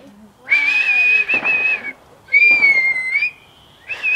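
A person whistling: three short, high whistled notes, the second sliding up at its end and the last warbling.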